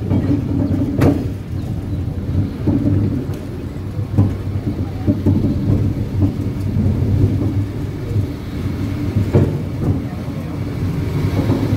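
Funicular car running up its inclined track: a steady low rumble with a few sharp knocks along the way.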